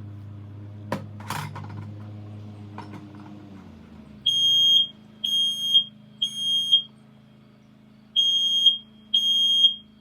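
Kidde HD135F heat alarm sounding its test: after a couple of handling knocks, a loud, piercing beep sounds about four seconds in, in the temporal-three pattern of three half-second beeps, a pause, then three more.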